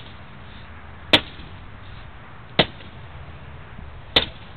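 Sledgehammer smashing computer parts: three hard, sharp strikes about a second and a half apart.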